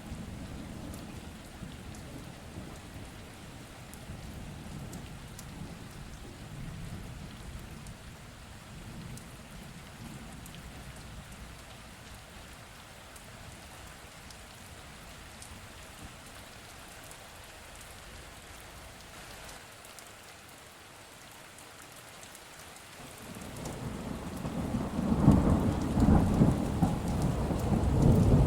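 Steady heavy rain with a low rumble of thunder that dies away. Near the end a loud roll of thunder builds up and rumbles on.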